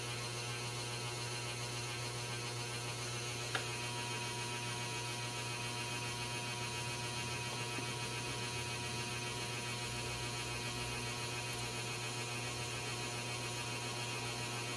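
Steady low electrical hum with a faint thin tone above it and a light hiss; one small click about three and a half seconds in.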